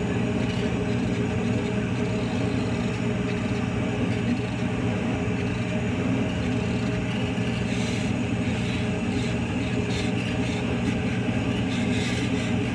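Chinese laser cutter running as it cuts a printed paper sheet: a steady mechanical hum, with a few faint clicks in the second half.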